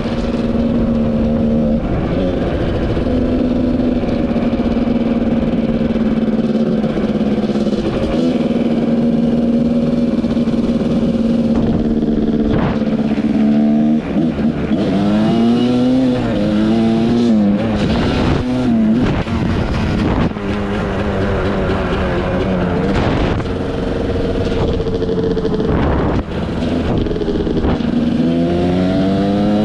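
Dirt bike engine under way on a trail, holding steady revs for about half the time, then revving up and down repeatedly through throttle and gear changes, steadying again and rising near the end.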